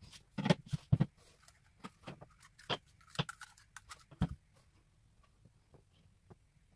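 Tabletop handling noises as fabric, cardboard and thin wire are worked by hand: a string of sharp knocks and taps with light rustling in between, thinning out after about four and a half seconds.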